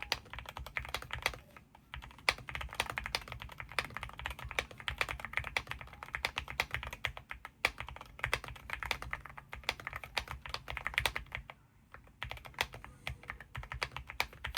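Fast, continuous typing on a Weikav Lucky65 v3 mechanical keyboard with Akko Rosewood switches and double-shot PBT keycaps, the switches giving a quiet thock. The keystrokes pause briefly about two seconds in and again near twelve seconds.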